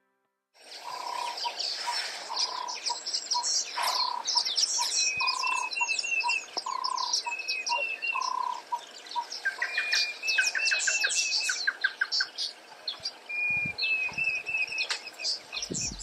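A chorus of several wild bird species calling and singing: many high chirps and trills, short repeated whistled phrases, and for the first half a low whistled note repeated about twice a second. It starts after a short gap of silence.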